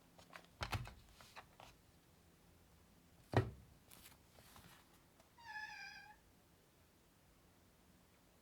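A few scattered clicks and knocks, the loudest a single thump about three and a half seconds in. Then, near six seconds, a short high-pitched call lasting under a second.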